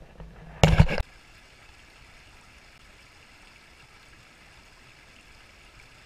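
A short loud burst of noise just over half a second in, then the faint steady rush of a small woodland brook running over rocks.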